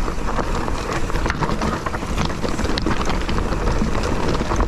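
Mountain bike riding down a dirt and rock trail: tyres rumbling over the ground, with frequent short rattles and clicks from the bike, and wind buffeting the microphone.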